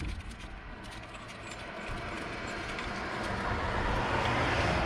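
A passing vehicle's road and engine noise, a rising rush over a low rumble that grows louder toward the end.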